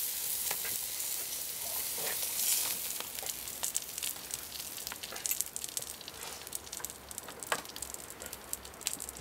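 Fat and meat juices sizzling on a hot grill grate. The steady hiss thins out over the first few seconds into scattered crackles and pops.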